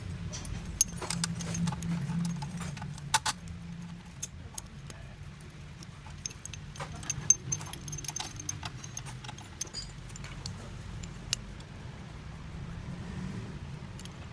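Metal parts and hand tools clinking and tapping at irregular intervals, likely from work on the AC compressor's clutch and bearing, over a steady low hum.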